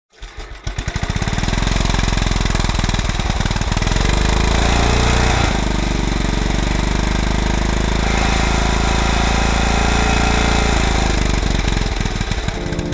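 Small riding-lawn-mower engine sputtering into life, then running steadily with its note shifting a couple of times, before slowing to scattered firing pulses and stopping near the end.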